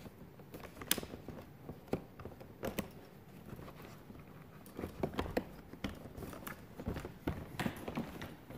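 Light knocks, clicks and rubbing as poles are slid into the carry straps along the side of a folded sled and pressed into place. The sharpest clicks come about a second in, twice around two to three seconds in, and again near the middle and end.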